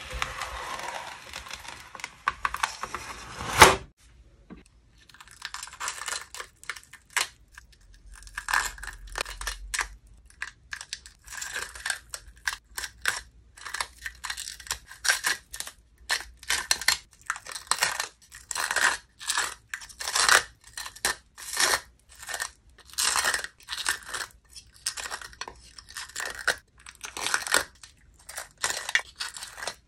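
A sheet of clear slime peeled off a plastic tray with a continuous sticky tearing sound, ending in one sharp, loud snap just under four seconds in. After a short pause, pieces of sun-dried slime are pulled out of a clear plastic grid box with tweezers, giving many short crisp crackles and crunches in irregular clusters.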